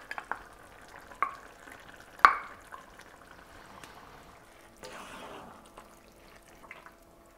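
A wooden spoon scraping and knocking against a small glass of tomato paste, a few sharp knocks with the loudest about two seconds in. Then the spoon stirring the tomato meat sauce in a cast-iron casserole.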